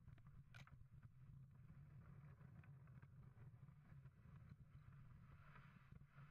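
Faint, steady rumble and hiss of a small wooden dog sled's runners sliding over thin, patchy snow while a pair of huskies pulls it, with scattered small clicks and a brief sharp click about half a second in.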